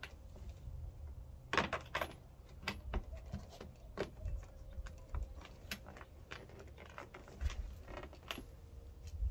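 Scattered light metallic clicks and clinks of small fasteners and hands working at a Mazda Miata's front lip spoiler from underneath as it is fastened on, with a quick cluster about a second and a half in.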